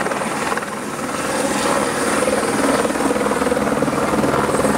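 Helicopter landing at close range: a loud, steady rapid chop of the rotor blades over a thin high whine, as it comes down and settles onto the helipad.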